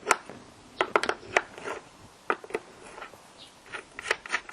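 The air filter housing and airflow sensor of a BMW E46 being worked loose by hand: irregular sharp clicks and light knocks of plastic parts, about a dozen, with short pauses between.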